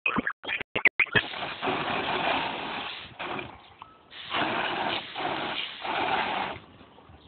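Water jet from a garden hose spraying and splashing as a dog snaps and bites at it. A steady hiss, chopped by short breaks and sharp clicks in the first second or so, with a lull about three seconds in and a fade near the end.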